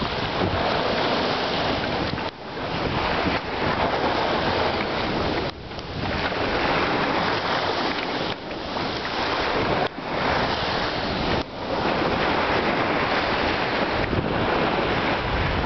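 Wind buffeting the microphone over small waves washing up onto a sandy beach: a loud, steady rush that drops out briefly about five times.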